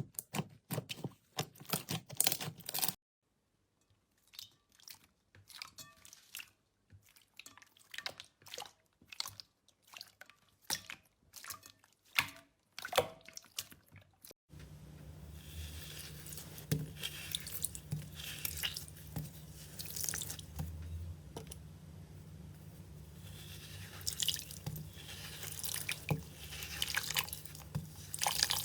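Slime being squeezed and poked by hand, making quick sticky clicks and wet pops. A low steady hum runs under the clicks in the second half.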